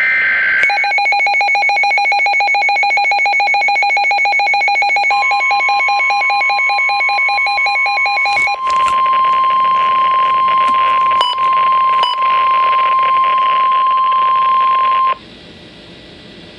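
NOAA Weather Radio severe thunderstorm warning alert tones. The last burst of the SAME digital header warbles for under a second. Then a weather radio receiver sounds a fast-pulsing electronic alert beep for about eight seconds. The steady 1050 Hz warning alarm tone comes in about five seconds in and holds for about ten seconds before cutting off.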